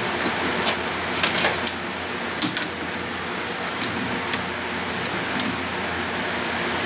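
Light metallic clicks and clinks as a steel steering-box sector shaft is slid into and seated in a lathe steady rest. They come thickest in the first three seconds, then as a few single ticks, over a steady background hiss.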